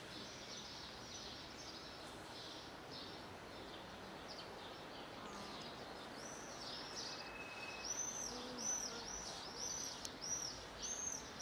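A small bird calling a quick series of high, arched chirps, faint at first and clearer and steadier in the second half, over steady outdoor background noise.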